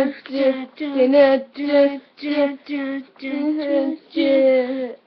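A child's voice singing a simple tune without accompaniment, in short separate notes of about two a second that stay mostly on one pitch.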